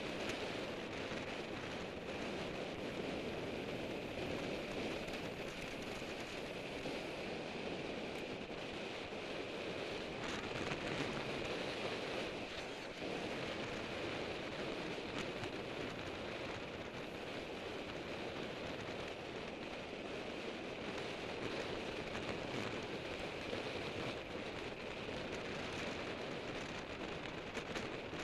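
Steady wind rush buffeting an action camera's microphone as a road bike rides at around 30 mph in a racing group.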